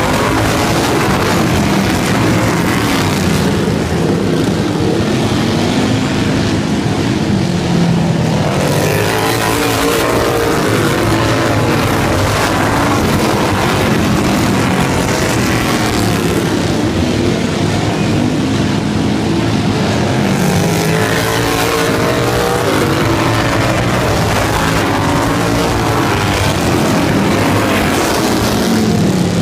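Racing lawn mowers' engines running loud, several at once, their pitch climbing and falling again and again as they accelerate and back off around the track.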